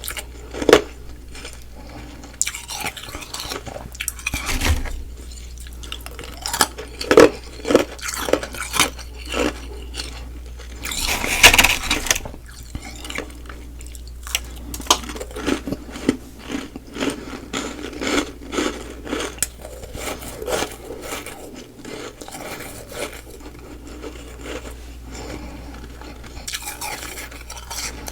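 Close-miked eating of humidifier frost ice: many short crunches and chews, with clinks and scrapes against a dish, and one louder crunch near the middle.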